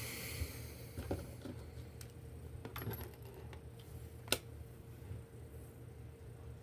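A few sharp small clicks and taps as the plastic and metal parts of a 12-volt DC plug are handled and fitted together, the clearest about four seconds in, over a steady low hum.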